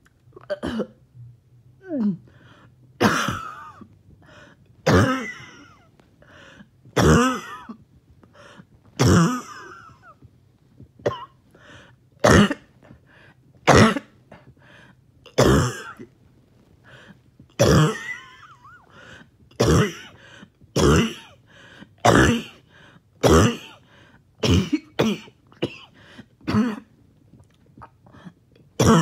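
A person caught in a choking coughing fit after exercise: harsh coughs about every one to two seconds, with rasping throat clearing between them.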